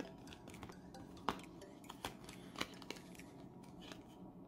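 Faint clicks and crinkles of a photocard being pressed and worked out of its perforated cardstock sheet, with a sharper snap about a second in and another a little past the middle.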